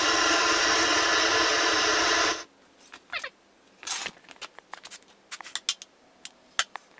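Propane furnace burner running with a loud, steady noise that cuts off suddenly about two and a half seconds in. After that, faint scattered clicks and ticks with a couple of short squeaky chirps.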